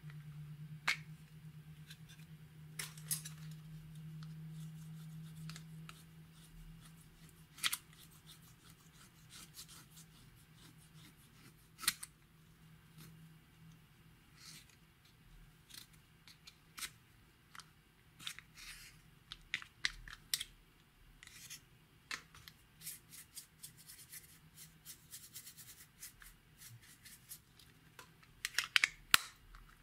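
Slime being worked by hand, giving irregular sharp clicks and small pops, thickest near the end. A low steady hum sits under it and fades about six seconds in.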